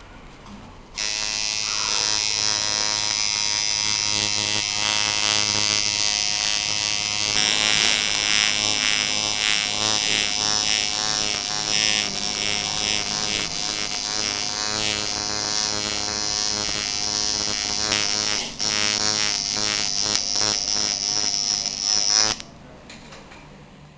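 Electric tattoo machine buzzing steadily as its needle is run along the lines of a tattoo in skin. It starts about a second in, falters briefly, and stops shortly before the end.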